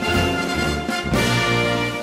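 Background music with brass and a strong bass line.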